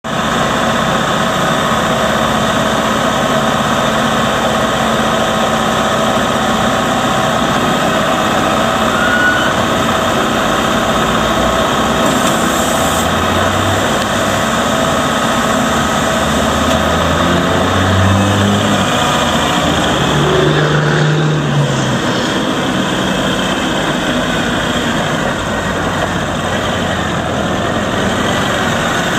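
Kubota MX5800's 61 hp Kubota diesel engine running steadily as the tractor is driven and its loader raised. Partway through, the engine's low note rises and falls for several seconds.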